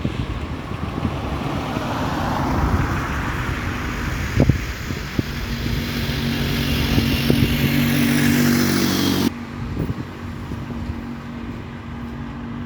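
A motor vehicle driving past close by, its engine and road noise steady with a slowly sweeping whoosh. The sound cuts off suddenly about nine seconds in, leaving quieter outdoor noise.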